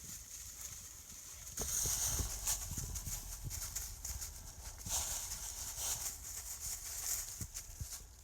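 Irregular footsteps and rustling through ground vegetation, with a low rumble of wind or handling on the microphone, louder from about a second and a half in.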